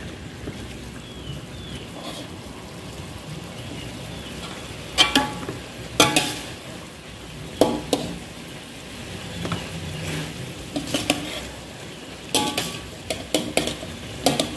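Slotted metal spatula scraping and knocking against a metal wok while stirring chicken pieces in thick coconut-milk sauce, a few sharp clatters standing out, more of them close together near the end. Beneath it a steady low sizzle of the sauce cooking.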